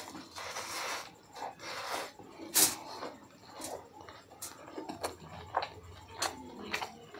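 Close-miked eating: a man chewing a mouthful of curry rice, with sharp wet mouth clicks and smacks, one louder smack about two and a half seconds in, and his fingers squishing the curry-soaked rice.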